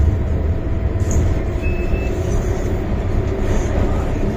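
Steady low rumble of an MTR M-Train electric multiple unit running underground, heard from inside the passenger car, with a brief high tone about two seconds in.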